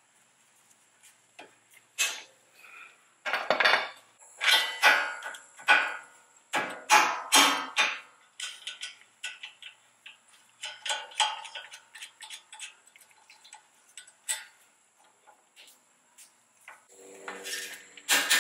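Hand tools clanking and clinking against the steel front suspension parts of a Toyota Tacoma: a long pry bar and a wrench knocking on the knuckle and control arm. Irregular metallic knocks, densest during the first half, with sparser clicks afterwards and another loud clatter near the end.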